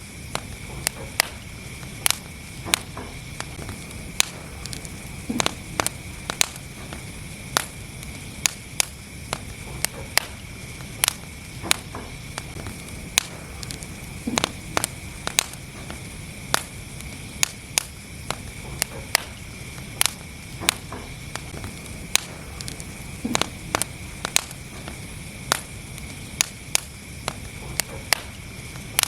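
Wood fire burning in a fireplace, crackling: irregular sharp pops and snaps, about one or two a second, over the steady low rush of the flames.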